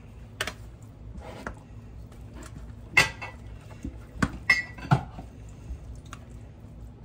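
Metal spatula knocking and scraping against a plastic colander as it presses cooked ground beef to squeeze out the grease, in a few separate strokes, the loudest about three seconds in and a quick run of them around five seconds in.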